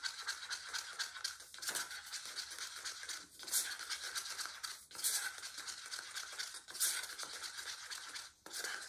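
A stir stick scraping rapidly round the inside of a small cup while stirring a thick acrylic paint mix to break up clumps, with a louder scrape about every one and a half seconds.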